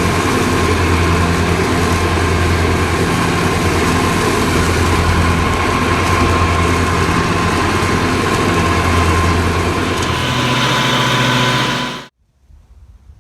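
Lawn mower engine running steadily at a constant speed, then cutting off abruptly near the end.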